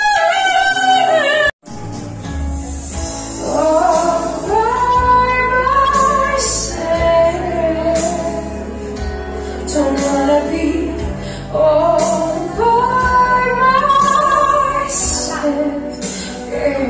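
A woman singing a melody into a handheld microphone over an amplified backing track, karaoke-style. The sound drops out for an instant about a second and a half in, then the singing resumes.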